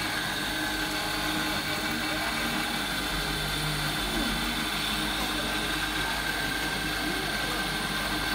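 Steady hum and whir of many industrial sewing machines running at once, with a few steady tones held throughout.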